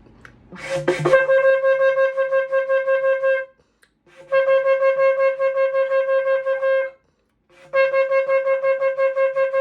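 Shofar blown in three long blasts on one steady note. Each blast is broken into rapid, even pulses, several a second, by the tongue cutting the air stream to make the pauses. A short rush of breath comes just before the first blast.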